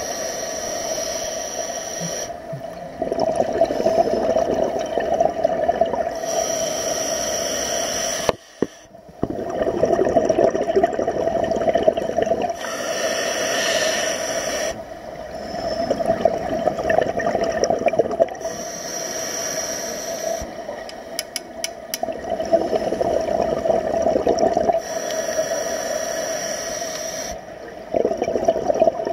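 Scuba divers breathing through regulators underwater, heard close to the camera. Exhaled bubbles rush out in bursts of a couple of seconds, alternating with quieter stretches between breaths.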